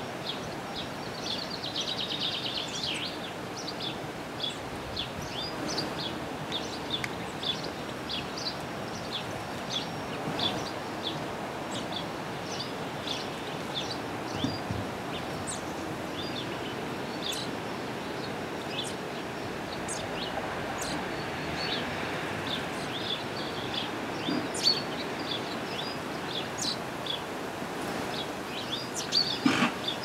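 Small garden songbirds chirping and calling throughout in quick, scattered notes, with a descending trill about two seconds in, over a steady background hiss.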